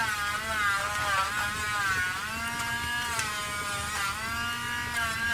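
Electric dog nail grinder running on a dog's nails, a buzzing whine whose pitch repeatedly dips and recovers as it is worked against the nail.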